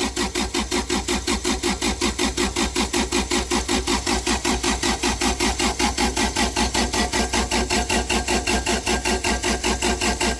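Cummins Onan generator's four-cylinder diesel engine cranking on its starter without firing, a steady rhythm of about five or six pulses a second. Its injector lines are cracked open to bleed air from a no-start that is suspected to be an airlock in the fuel system.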